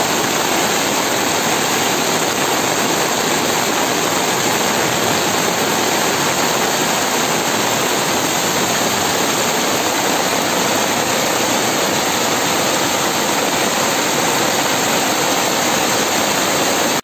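Heavy rain and fast floodwater rushing across a street, a loud steady roar of water.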